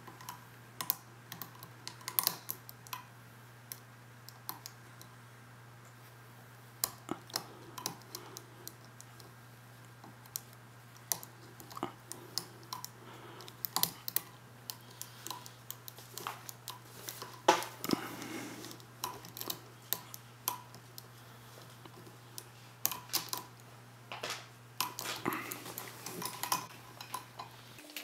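Irregular light clicks and scrapes of a lock pick working the pins of an old Zeiss-Ikon brass pin-tumbler cylinder held under a tension wrench, over a steady low hum.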